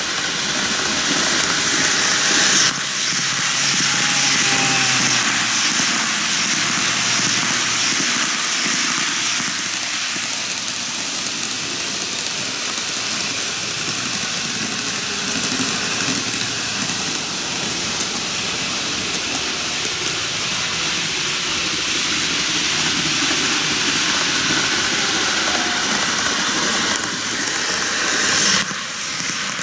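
TOMIX N-gauge model train, an Odakyu 50000-series VSE Romancecar, running on canted track: a steady rattling hiss of wheels on the rails. The sound changes abruptly about three seconds in and again near the end.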